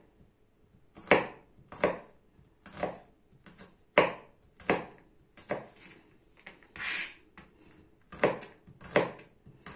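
Kitchen knife slicing garlic cloves on a plastic cutting board: single cuts, each a sharp knock of the blade against the board, about a dozen at roughly one a second with short pauses between.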